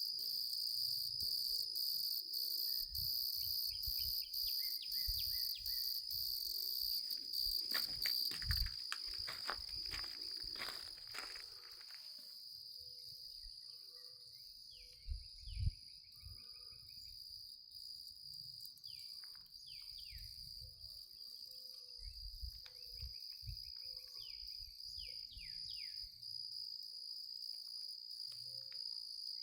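Outdoor insect chorus, a steady high shrill trilling, with short falling chirps now and then; it is louder over the first dozen seconds and then quieter.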